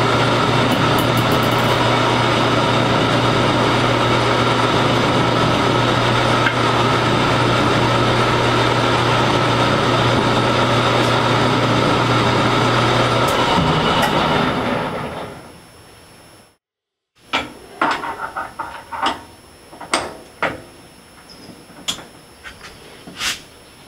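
Metal lathe running steadily with a drill bit in the tailstock boring into the spinning part; about two-thirds through the lathe winds down and stops. After a brief break come scattered sharp metallic clicks and knocks of the chuck and tools being handled.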